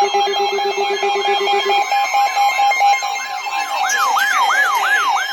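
Several emergency alert tones sounding over each other: a siren-like warble sweeping up and down about two and a half times a second over a pulsing steady beep. A lower pulsing tone stops about two seconds in, and a second, louder warble starts near four seconds in as another alert comes in.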